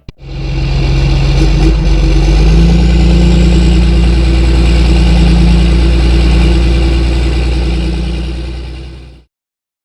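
Engine running at a steady speed, its pitch rising slightly about two seconds in, then cutting off abruptly near the end.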